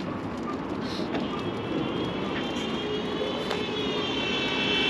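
Aircraft engine overhead: a droning rumble with a high whine that grows steadily louder as the plane approaches.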